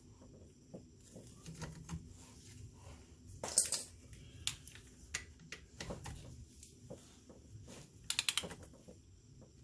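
Hand tools working on the A/C compressor's mounting bolts: scattered clicks and metal taps, a sharp clink about three and a half seconds in, and a quick run of clicks near the end.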